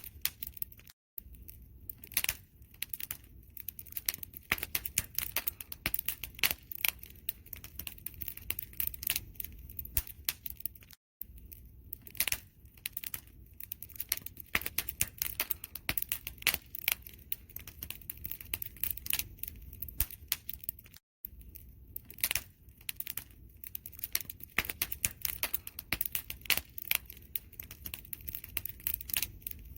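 Wood fire crackling: a dense run of sharp pops and snaps over a low, steady rumble. The sound cuts out completely for a split second about every ten seconds.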